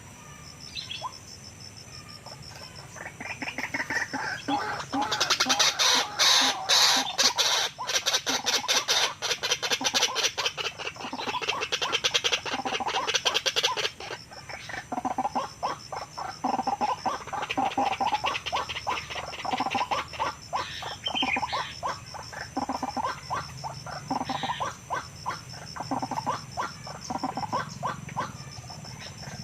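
White-breasted waterhen (ruak-ruak) calling: long runs of rapid repeated notes that build up a few seconds in, are loudest through the middle, and carry on more unevenly to the end.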